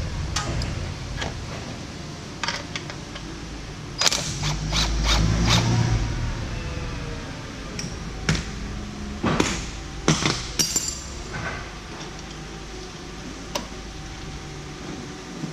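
Hand tools clicking and knocking against metal fittings in scattered sharp strikes, with a busier cluster of knocks near the middle, over a low rumble.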